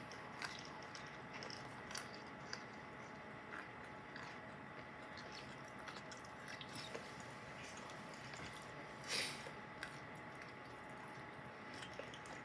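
Mixed nuts being chewed close to a clip-on microphone: faint, scattered crunches and clicks, with one louder crunch about nine seconds in.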